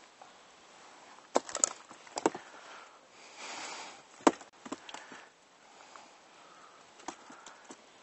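Scattered sharp knocks and clicks of fishing gear handled in a boat as a caught perch is dealt with and the float rod is cast out again, the loudest knock just past four seconds in, with a short rustle just before it.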